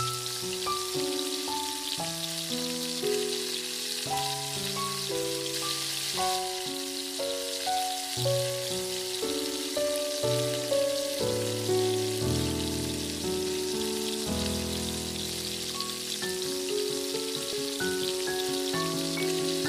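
Oil sizzling in a miniature steel kadai as chopped onion and then tomato fry in it: a steady hiss. An instrumental background melody of held notes plays throughout.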